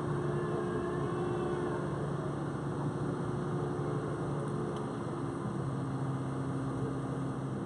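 Diesel engines of mobile cranes running steadily, an even low-pitched engine tone with no revving.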